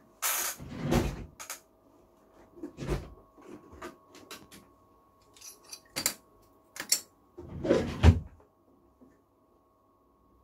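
Handling noise at a phone repair bench: a run of separate knocks and scrapes as the circuit board and tools are moved into position, over a faint steady electrical hum.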